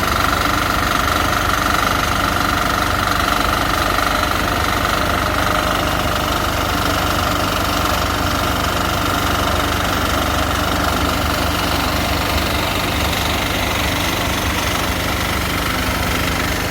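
Engine of a portable concrete mixer running steadily at an even speed.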